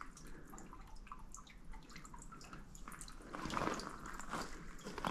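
Faint, scattered water drips in a damp, stone-walled fernery grotto. Soft footsteps on a gravel path join in from about three seconds in.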